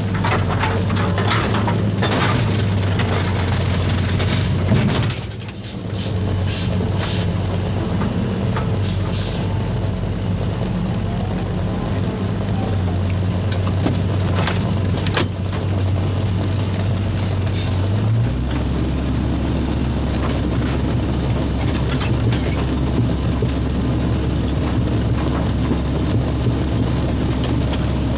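Komatsu excavator's diesel engine running steadily, with a few sharp clicks about five to seven seconds in. About eighteen seconds in, the engine note drops to a lower speed.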